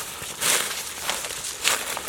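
Footsteps crunching through dry leaf litter, a step about every half second.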